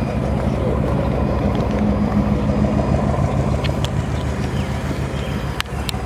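Ford 312 cubic-inch Y-block V8 idling steadily, a low even rumble. A couple of light clicks near the end.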